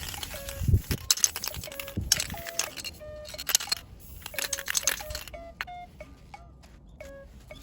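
Background music of short, light stepping notes. Over the first five seconds it is mixed with irregular scraping or scrubbing noise that stops abruptly about five seconds in.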